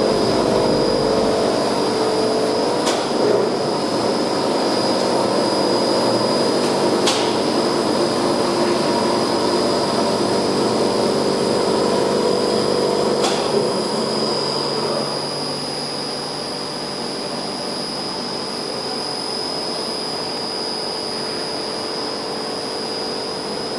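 Large reversible heat pump running under test at −3 °C: a steady machine hum with a constant high whine. Three sharp clicks, and the running noise eases slightly a little past halfway.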